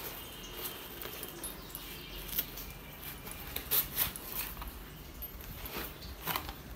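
Cardboard packaging being opened by hand: scattered rustles, scrapes and a few sharp clicks as the flaps are pulled apart and a box is slid out.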